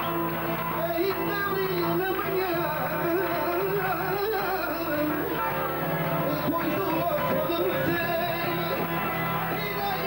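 Live cigano (Portuguese gypsy) music: a singer's wavering, ornamented vocal line over guitar accompaniment.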